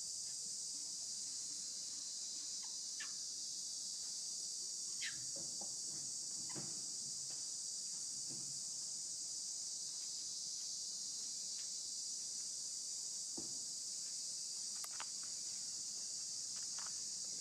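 A steady, high-pitched insect chorus, an unbroken shrill hum, with a few faint taps and clicks scattered through it.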